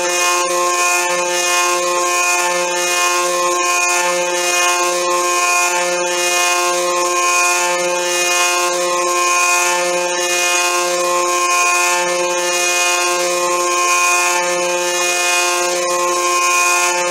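Homemade CNC milling machine cutting metal with a 4 mm end mill: a steady spindle whine over a high cutting hiss, with scattered sharp clicks and a low pulse repeating a little over once a second as the cutter works round the pocket.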